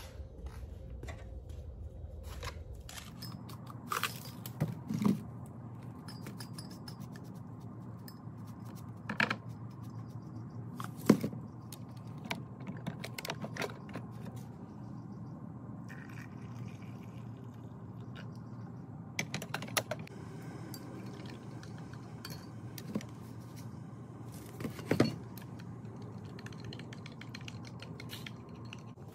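Small kitchen handling sounds: scattered clinks, taps and scrapes of a spoon, mug and containers, as sugar is spooned and stirred into a mug. A sharp knock about eleven seconds in is the loudest. A steady low hum starts about three seconds in and runs underneath.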